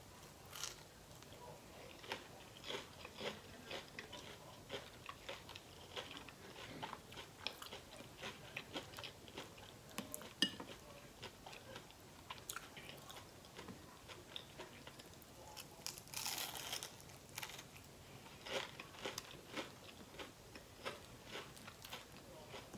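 Chewing and crunching on a fried onion ring: a steady run of small crisp crunches and mouth clicks, with a louder crunch about two thirds of the way through.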